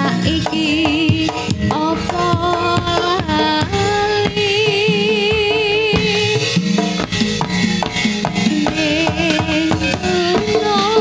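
Live Javanese gamelan music: drum strokes drive the rhythm under a singer's wavering melody line.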